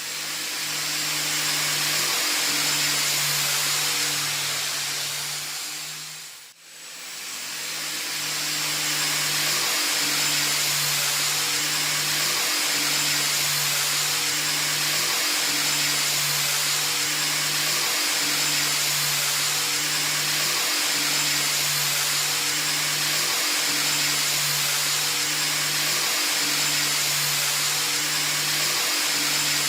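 A machine running with a steady loud hiss, with a low hum that comes and goes about every two and a half seconds; the sound fades out and back in about six and a half seconds in.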